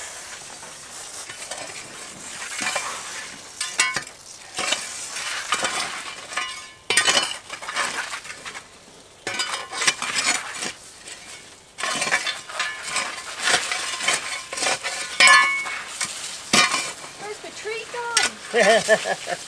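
Spade digging into dry, stony soil in irregular strokes: gritty scrapes and crunches of earth and grit, with short knocks of the blade.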